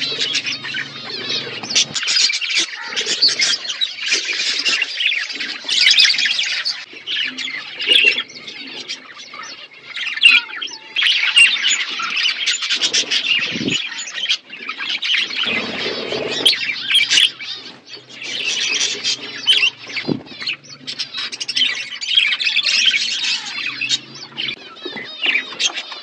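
A flock of budgerigars chattering, many birds at once in a dense, high-pitched warble that hardly pauses.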